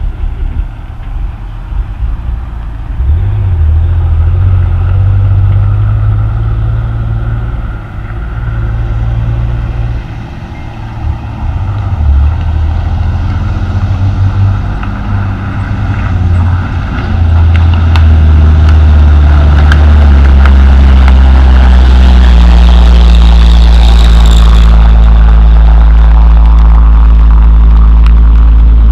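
Heavy diesel coal-hauling truck engine running and getting louder as the truck approaches, then holding a loud, steady low drone for the last third.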